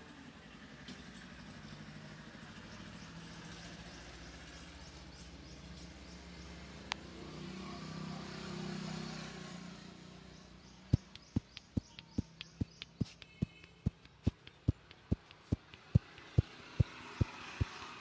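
Rhythmic percussive head-massage strikes: the barber's hands tap the top of a man's head in a quick even run, about three sharp slaps a second, starting about eleven seconds in. Before that there is a steady rumble of road traffic, which swells briefly about eight seconds in.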